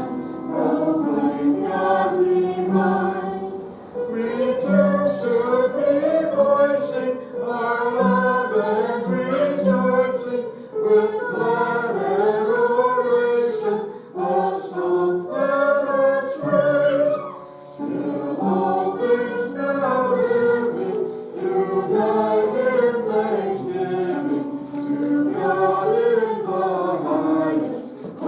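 A group of voices singing a hymn together, in phrases with short pauses between them.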